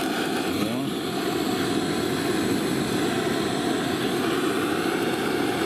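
Portable gas torch burning with a steady, even hiss while it is used to light barbecue charcoal.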